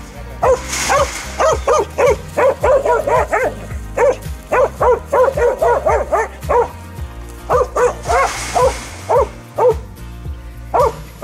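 Kelpie working dog barking at sheep to push them: a fast series of short, sharp barks, about three a second, broken by brief pauses.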